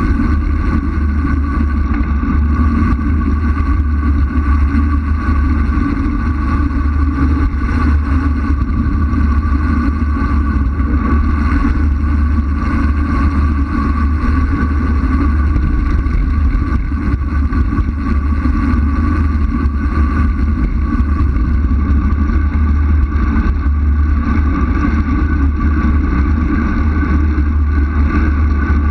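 Steady, loud rumble of wind buffeting an action camera's microphone during a fast descent, even throughout with no breaks.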